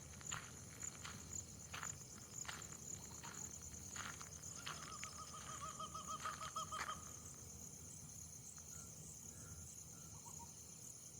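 Steady high-pitched insect chorus with a fast pulse. Over the first seven seconds come sharp snaps or cracks, roughly one a second, and a brief warbling call sounds about five seconds in.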